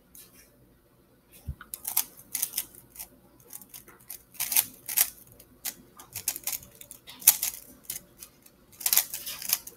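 3x3 Rubik's cube being turned in a speedsolve: bursts of rapid plastic clicking and clacking from the layers turning, with short pauses between runs of moves. It starts about a second and a half in, right after a single soft thump.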